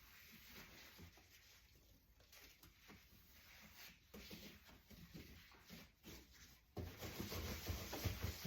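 Hand scrubbing inside a dishwasher: faint repeated rubbing strokes that turn suddenly louder near the end.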